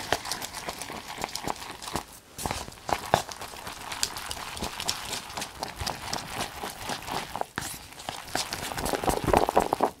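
Close-miked crisp crackling and crunching from Meoktaekkang snacks: a dense run of irregular crackles, with short lulls about two seconds in and again past the middle, and busiest near the end.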